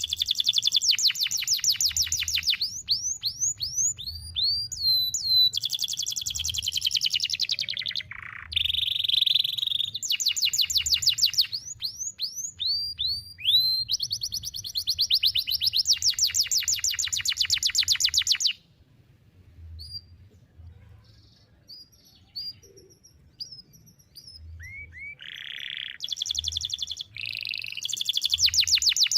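Canary singing long runs of rapid trills and sharp, falling whistle notes, broken by a quieter pause of several seconds about two-thirds through before the song starts again.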